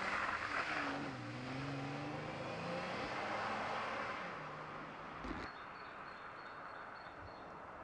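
Car engine pulling away and accelerating, its pitch rising, the sound fading as the car drives off into the distance.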